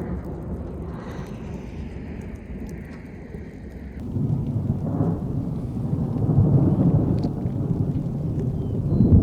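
Continuous low rumble of thunder from a severe thunderstorm, growing louder about halfway through.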